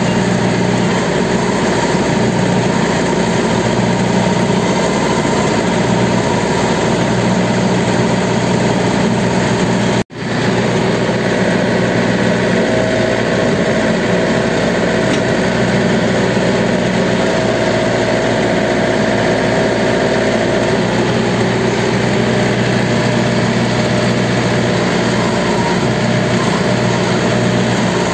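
Rice combine harvester's engine running steadily while its controls are worked, with a thin higher whine coming and going in the middle. The sound cuts out abruptly for a split second about ten seconds in.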